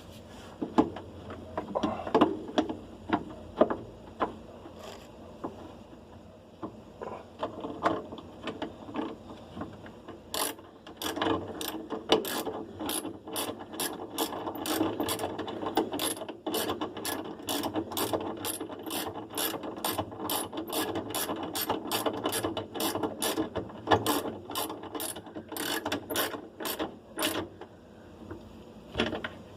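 Ratchet wrench clicking as a bolt is worked on a washing machine being taken apart. Scattered knocks and clicks come first, then about ten seconds in a long run of quick, even ratchet clicks, about two to three a second, stopping near the end.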